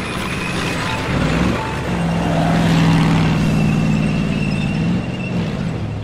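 Cartoon motor-vehicle engine sound effect, a running engine with a rushing rumble; its hum steps up in pitch about a second and a half in and drops back near the end. Background music plays underneath.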